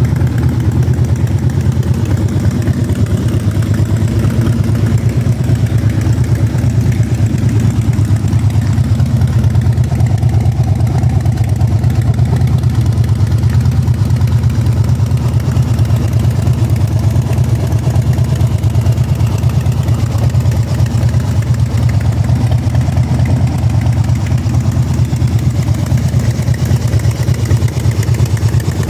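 Harley-Davidson Street Bob's Twin Cam 103 air-cooled V-twin idling steadily.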